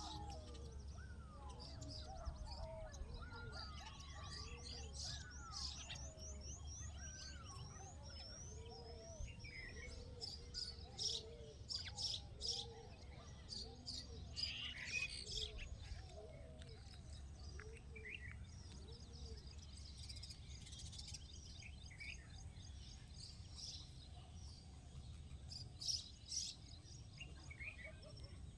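Several birds calling and chirping together: a quick run of high rising whistled notes a few seconds in, sharp chirps, and lower curving notes, over a steady low hum.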